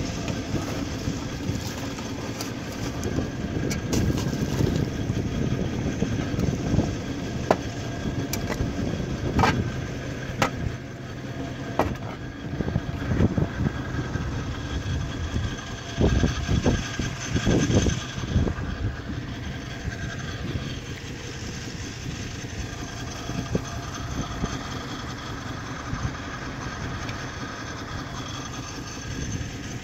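Engine machinery of a water-well drilling rig running steadily, a constant drone with a few sharp clicks near the start and some gusts of wind on the microphone partway through.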